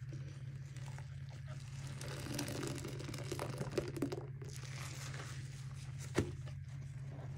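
Soaked sponges squeezed in rubber-gloved hands over a sink of soapy solution: wet squelching and crackling foam, with liquid streaming back into the foamy water. A few sharp clicks fall in the middle, and a louder one comes about six seconds in, all over a steady low hum.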